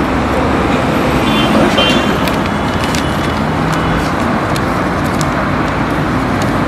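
Steady street traffic noise, an even wash of road sound, with a few faint short clicks on top.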